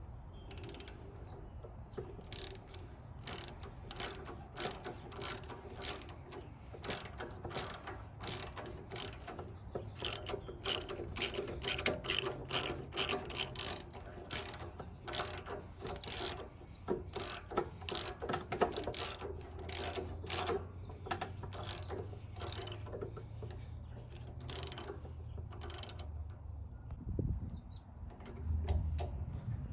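Ratchet wrench with a 13/16-inch spark plug socket and extension, clicking in quick irregular runs as it is swung back and forth counterclockwise to unscrew the spark plug from a Honda GX390 engine. The clicking stops a few seconds before the end.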